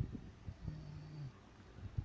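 A sleeping woman snoring in low, rough breaths, with a short steady low hum about a second in.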